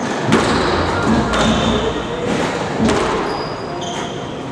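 Squash ball being hit with racquets and striking the court walls: three sharp hits, a second or so apart, each ringing on in the court. A few short squeaks of court shoes follow near the end.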